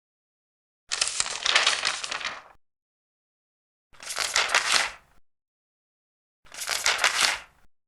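Large paper pages being turned three times, each a crackling rustle of paper. The first turn lasts about a second and a half, the next two about a second each, with silence between them.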